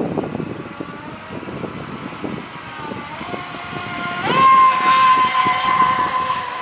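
Feilun FT011 RC racing boat's brushless motor whining as the boat speeds across the water; the pitch climbs, jumps up sharply about four seconds in and holds high at full throttle, its loudest point.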